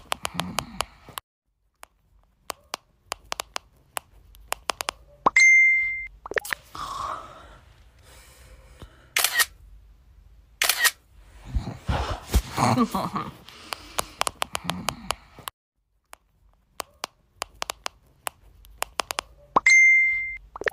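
Camera shutter clicks in quick runs, like a phone snapping a burst of photos, with a short high beep twice.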